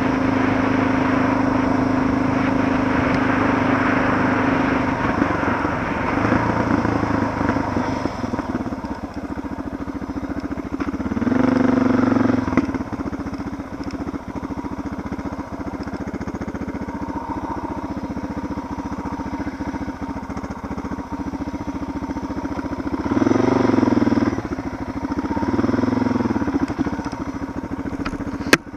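Suzuki DR650's single-cylinder four-stroke engine running at low revs on a rough dirt trail, opening up and easing off three times: once about a third of the way in and twice near the end. A single sharp click comes just before the end.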